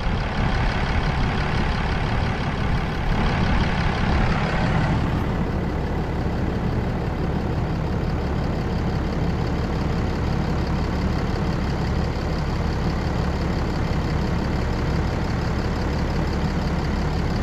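Truck engine idling steadily, a constant low drone.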